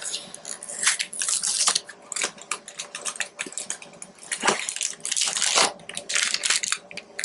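Plastic cookie packaging crinkling and tearing open in irregular rustling bursts as the soft baked cookies are unwrapped.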